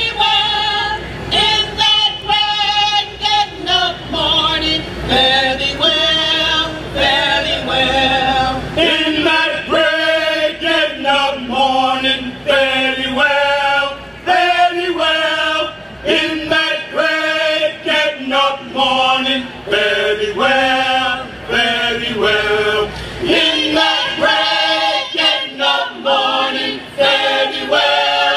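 Gospel church choir of mixed men's and women's voices singing in harmony, unaccompanied, a cappella.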